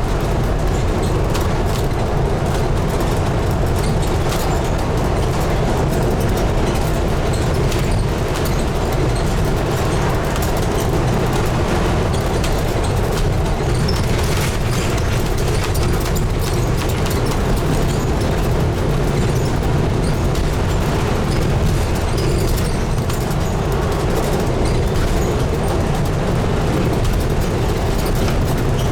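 Scania N250UD double-decker bus running on the road, heard from inside the bus: a steady, loud mix of diesel engine and road noise, heaviest in the low range, from its five-cylinder 9.3-litre diesel.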